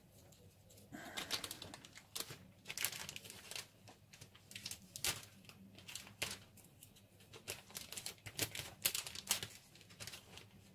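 Clear plastic bag holding plastic model-kit sprues crinkling and crackling as it is handled, with irregular sharp clicks and crackles coming in uneven bunches.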